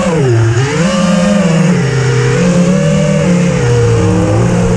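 FPV racing quadcopter's brushless motors and propellers whining, close to the onboard camera, the pitch dropping sharply just after the start, then rising back and wavering with the throttle.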